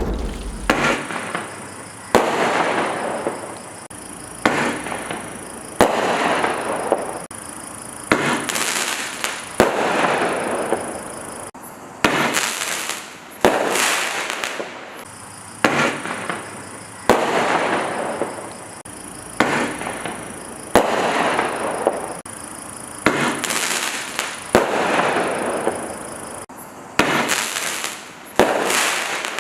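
Star Blast Shot firework shot tubes firing one after another, about one shot every second or so. Each is a sharp report followed by a fading hiss.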